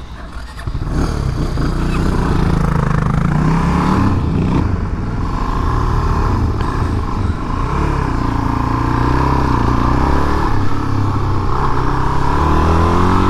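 Motorcycle engine running, getting louder about a second in, its revs dipping and rising.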